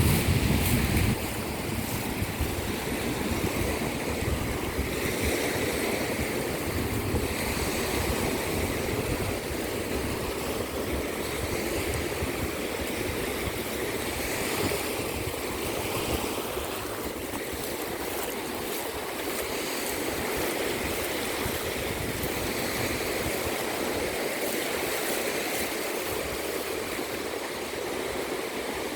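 Sea waves washing onto a beach, a steady wash of surf. Wind buffets the microphone with a low rumble for the first second or so, then eases.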